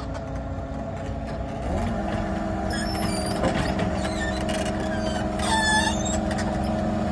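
2019 Weller P385B asphalt paver's engine running steadily, picking up speed about two seconds in. A few short high chirps are heard over it.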